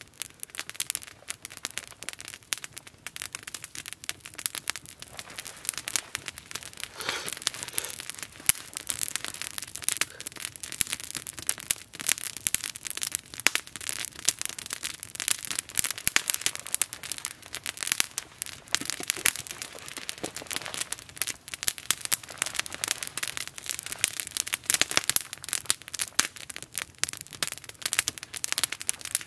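Small wood campfire crackling, with frequent sharp, irregular pops. A short rustle comes about seven seconds in and again near the end.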